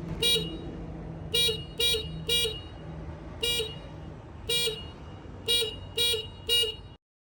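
Horn of a Yanmar construction machine tooted in a rhythmic pattern: nine short beeps, some in quick pairs and threes, over a steady low hum. This is the warning horn sounded before a machine starts moving. All sound cuts off abruptly near the end.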